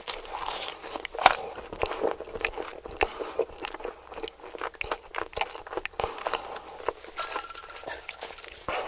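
Close-miked biting and chewing of crispy fried food: irregular sharp crunches and crackles, the loudest about a second in.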